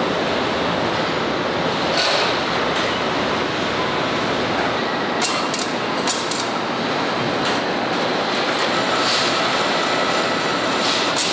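Steady din of a tractor assembly line, with a few sharp metallic clinks and clicks scattered through it.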